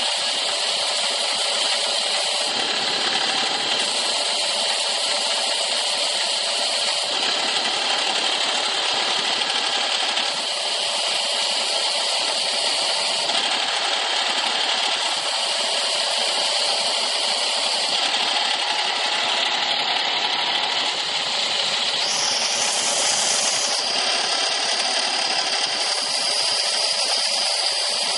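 Delta belt and disc sander running steadily, its abrasive belt grinding small wooden game pieces pressed against it now and then.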